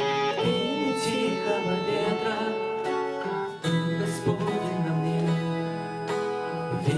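Instrumental music led by guitar, with sustained chords underneath: the opening of a worship song, just before the singing comes in.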